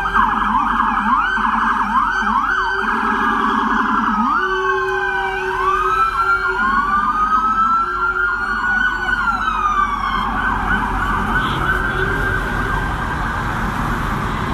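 Several emergency vehicle sirens sounding at once and overlapping. Fast yelping sweeps in the first few seconds give way to slower rising and falling wails.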